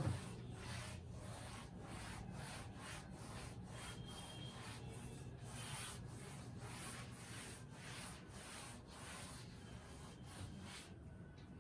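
Chalk being wiped off a blackboard with an eraser, in repeated back-and-forth rubbing strokes, about two to three a second, that stop near the end.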